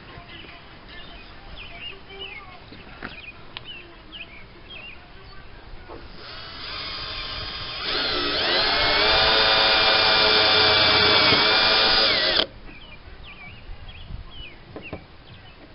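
Cordless drill boring a hole into the car's bumper at a marked spot. It starts about six seconds in, speeds up and gets louder about two seconds later, runs steadily with a slight dip in pitch under load, and stops abruptly. Faint bird chirps come before it.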